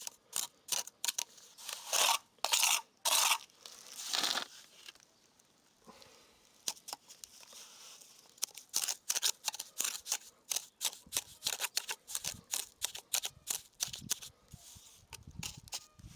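Bricklayer's steel trowel scraping and spreading mortar on brick: a run of short, sharp scrapes and taps, with a few longer strokes.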